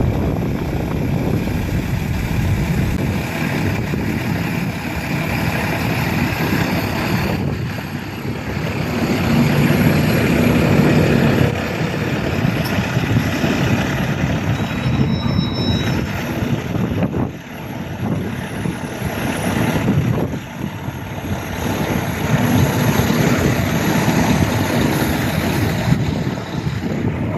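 Helicopter flying overhead: steady rotor and engine noise, with wind on the microphone.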